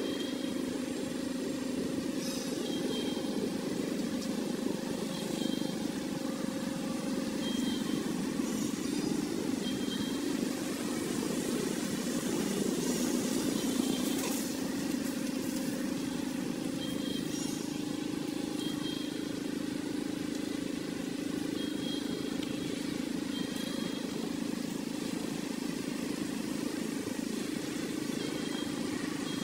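Steady low outdoor drone, with short high chirps recurring every second or two.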